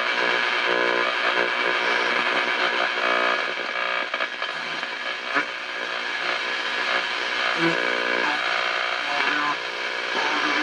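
Five-tube Hallicrafters S-38D shortwave receiver being tuned across the band: its speaker gives a continuous mix of static, steady whistling tones and garbled fragments of broadcast audio as the dial passes between stations.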